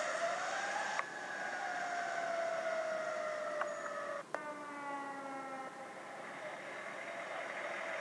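Fire truck siren wailing: its pitch rises briefly, then slowly falls. The sound is broken by a few abrupt cuts, and after the last one a new falling wail begins.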